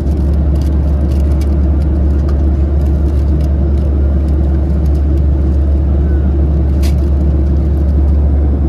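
Steady cabin noise of a Boeing 737-700 in flight: a loud, even, deep rumble of engines and rushing air. A light click sounds about seven seconds in.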